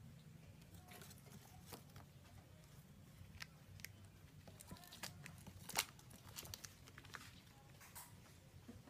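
Faint, scattered clicks and light plastic crinkling from a hamster scrabbling about on a plastic cage floor and plastic sheeting. The loudest click comes a little before six seconds in, over a low steady hum.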